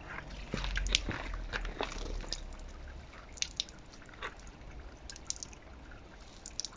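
A soapy wash mitt wiping over a wet car door, with soft wet rubbing, dripping and sloshing, and a few small clicks. A bucket is set down about a second in.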